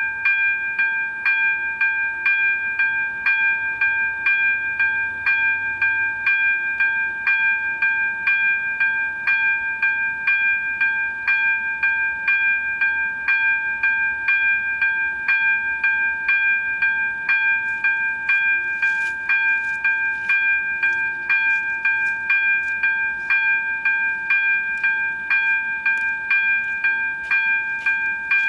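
Electronic warning bell of a Czech level crossing's AŽD 97 signals, ringing in an even, rapid rhythm of about two strokes a second: the crossing is closed and warning of an approaching train.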